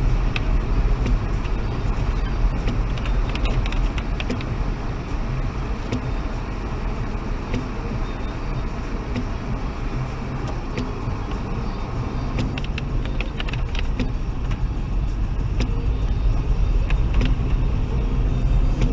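Steady in-cabin road noise from a Toyota Aygo driving on a wet road: a continuous low engine and tyre rumble, with a few scattered light ticks.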